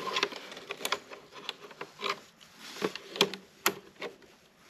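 Spring-loaded alligator clamps of a trickle charger being handled and clamped onto a battery's terminals: an irregular string of sharp clicks and small rattles.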